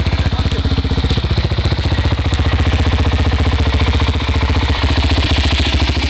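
Quad bike (ATV) engine running steadily at low revs close by, an even, rapid chugging.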